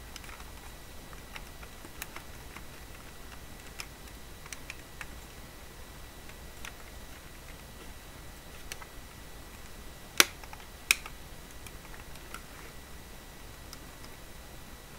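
Scattered light clicks and taps of hard plastic parts being handled as an action figure is fitted into the seat of a 1:18 die-cast model Ford Bronco. Two sharper clicks come under a second apart, about two-thirds of the way through.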